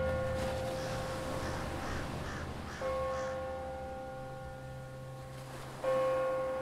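Atmospheric transition sound effect: a ringing, chime-like tone sounds three times about three seconds apart, each note fading slowly over a low steady drone, with faint crow caws in the background.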